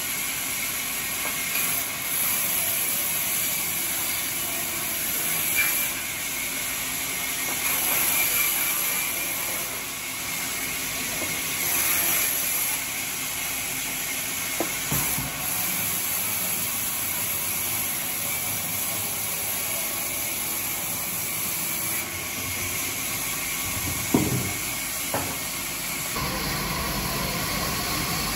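Large vertical band saw running and ripping timber: a steady hissing noise, with a few sharp knocks of wood near the middle and about three-quarters of the way in.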